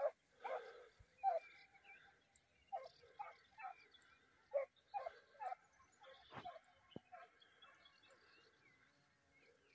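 Distant dogs barking: short barks in irregular runs of two or three, dying away after about seven seconds.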